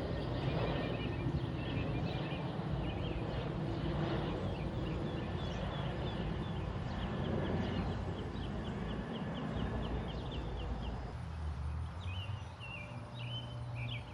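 Low rumble of a distant aircraft dying away, with a bird chirping in quick runs of short repeated notes over it.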